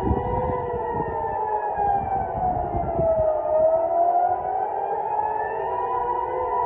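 Civil-defence air-raid sirens wailing, several overlapping at different pitches, their tone sinking and then rising again about halfway through: the rocket and missile alert warning of an incoming missile attack.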